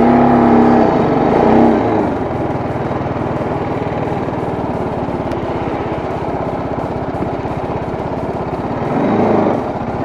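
Motorcycle engine running at low speed: its note drops over the first two seconds as the bike slows, then settles into a steady low putter.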